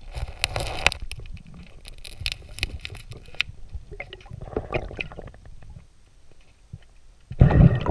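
Muffled underwater sound, recorded through a GoPro housing: irregular clicks, crackles and soft knocks as gloved hands pull a fishing lure off the rocky riverbed and work at it. A brief, loud, low gurgling rush comes near the end.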